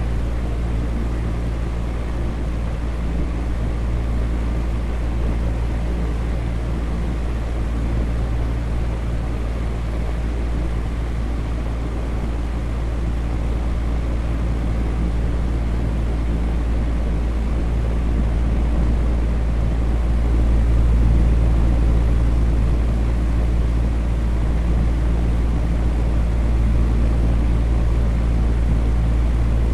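Electric fan running steadily: a constant rushing whoosh with a low hum underneath.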